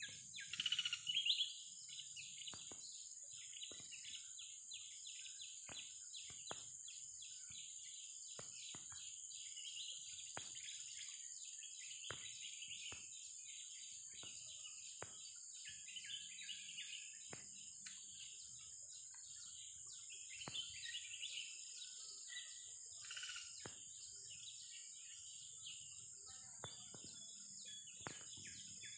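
Wild oriental magpie-robin singing: a continuous run of quick chirps and whistled phrases, loudest in the first second or so, over a steady high-pitched drone.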